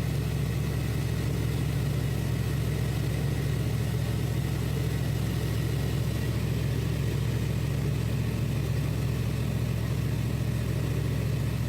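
1995 Chevy Tahoe engine idling steadily with the air conditioning running, a low, even hum with no change.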